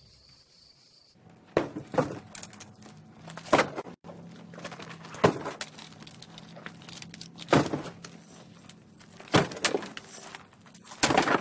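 Objects being thrown one after another into a rubbish bin: a loud, sharp, jangling crash roughly every two seconds, over a steady low hum.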